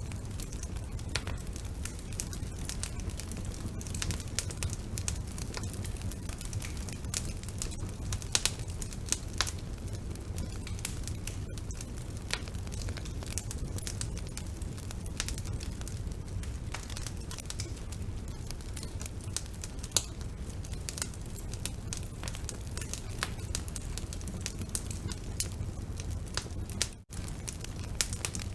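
Wood fire burning in a fireplace: constant irregular crackling and sharp pops over a steady low rumble of the flames, with a couple of louder pops. The sound cuts out for an instant near the end.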